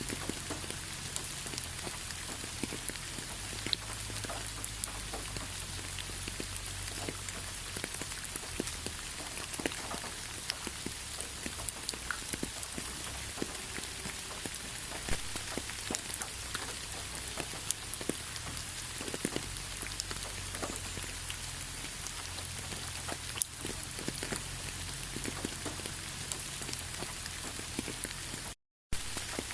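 Steady rain, with many individual drops pattering and ticking on surfaces; the sound cuts out for a split second near the end.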